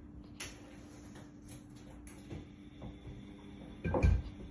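A cat's paws stepping on a stainless-steel cooker hood: a few light taps, then a louder double knock about four seconds in.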